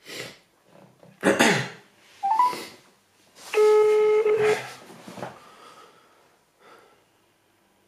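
A few loud, short noises close to the microphone, then a telephone ringback tone from a smartphone on speaker: one steady beep about a second long, about three and a half seconds in, as an outgoing call rings at the other end.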